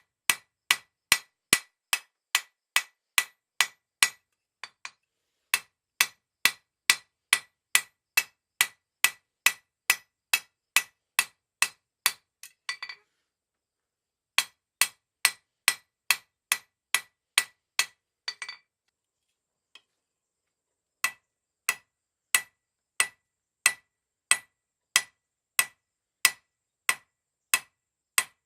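A hand hammer striking a mild steel round bar on an anvil in a steady rhythm of about two to three ringing blows a second. The hammering stops three times, and during two of the breaks there is a short metallic rattle.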